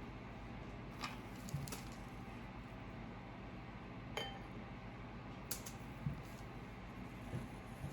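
A few faint, scattered clinks and taps of containers being handled, one of them with a short ring.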